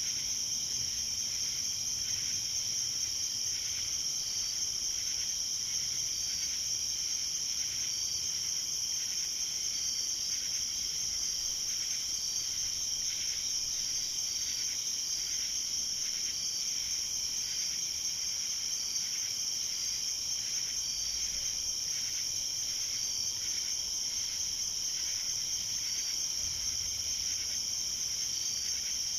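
A chorus of night insects: a continuous high, steady trill, typical of crickets, with short chirps repeating about once a second over it.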